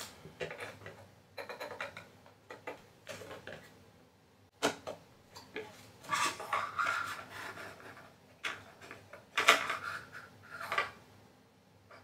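Small clicks, taps and clatter of 2013 Mac Pro computer parts being handled and fitted together by hand on a tabletop. There is a sharper knock about halfway through and two longer scraping rubs later on.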